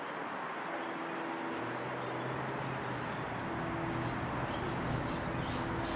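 Three-car X'trapolis electric train approaching slowly, with a steady low electric hum and a higher steady tone over rumbling running noise, growing slowly louder.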